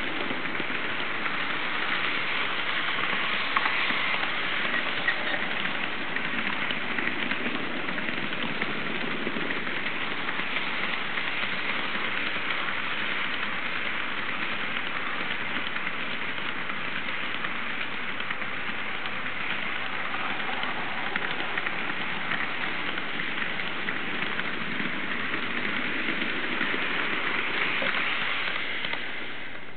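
HO-scale model freight cars rolling past close by on sectional track with roadbed, a steady rattle of wheels on rails that eases off near the end as the train goes by.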